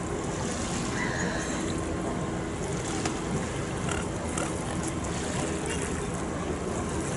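Steady lakeside ambience: a continuous wash of wind and small waves lapping at the shore, with faint distant voices.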